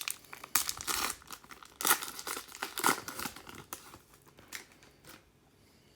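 Foil wrapper of a 2006 Fleer Hot Prospects trading-card pack being torn open and crinkled in a quick string of crackles, stopping about five seconds in.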